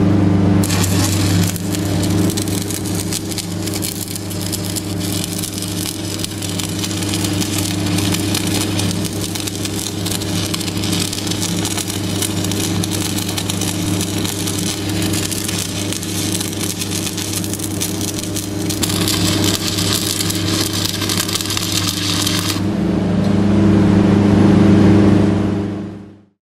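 Stick (shielded metal arc) welding powered by a Denyo DLW-500ISW diesel engine-driven welder: the arc crackles steadily and evenly, the sound of a stable arc, over the steady hum of the welder's diesel engine. About 22 seconds in the arc stops and the engine keeps running alone.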